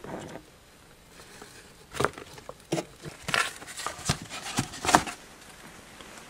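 Cardboard box being handled, with several sharp knocks and scrapes between about two and five seconds in.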